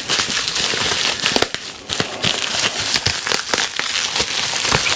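Printer packaging being handled and unwrapped by hand, a continuous crinkling rustle with many small crackles.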